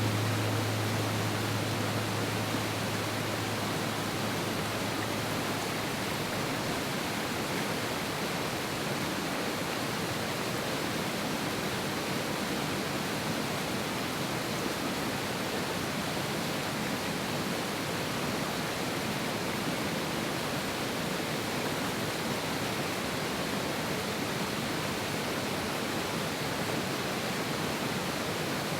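Fast-flowing mountain river, its water rushing steadily and evenly. A low held tone fades out during the first few seconds.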